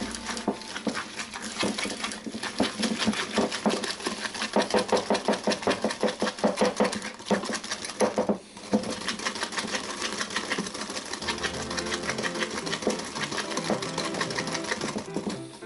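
Wire balloon whisk beating egg yolks and sugar by hand in a ceramic bowl, the wires clicking rapidly against the bowl at about four or five strokes a second, with a brief pause about halfway through.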